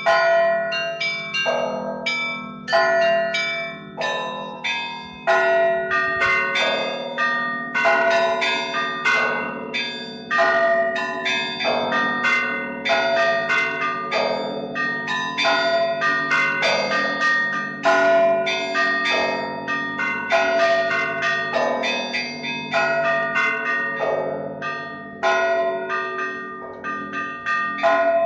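Russian Orthodox church bells ringing a peal: small bells struck in quick, overlapping patterns over the steady hum of larger bells, with a mid-pitched bell recurring a little more often than once every one and a half seconds.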